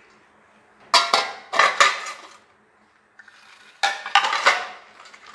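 Aluminium pressure cooker and its lid knocking and clinking as they are handled: two short bursts of metal clanks, about a second in and again near four seconds.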